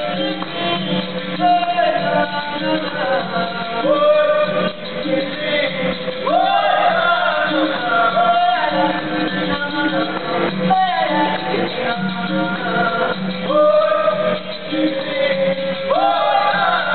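Capoeira music: male voices singing, with a group joining in, over a steady low tone that runs throughout.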